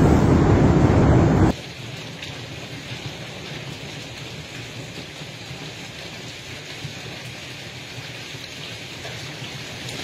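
Hail drumming loudly on the roof of a large store, heard from inside as a dense roar, which cuts off abruptly about a second and a half in. After that comes a steady, quieter hiss of hail and rain falling on a lawn.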